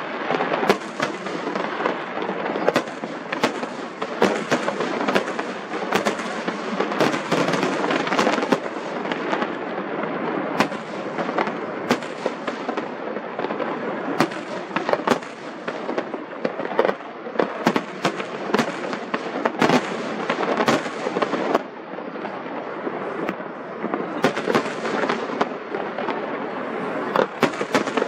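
Aerial fireworks display going off in a steady barrage: dense crackling with many sharp bangs and pops.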